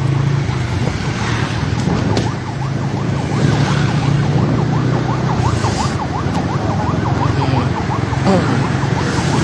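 Electronic emergency-vehicle siren in a fast yelp, its pitch sweeping up and down several times a second, starting about two seconds in over the steady low hum of a vehicle engine.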